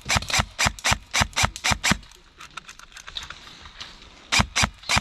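Airsoft gun firing a rapid string of shots, about four to five a second, for two seconds, stopping, then firing again near the end.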